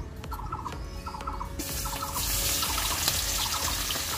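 Prawns rubbed with turmeric and salt go into hot mustard oil in a kadai about one and a half seconds in, setting off a steady sizzle of frying. Throughout, a bird gives a short repeated call about every half second.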